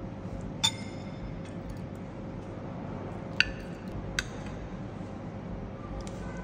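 Metal spoon clinking against a ceramic plate while scooping rice, three sharp clinks with a short ring: one less than a second in, then two close together about three and a half and four seconds in, over steady background noise.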